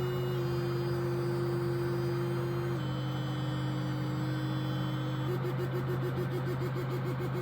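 Sonic electric toothbrush buzzing steadily. Its pitch steps down twice as it is switched through its cleaning modes, then about two-thirds of the way in the buzz starts pulsing about five times a second, like a massage mode.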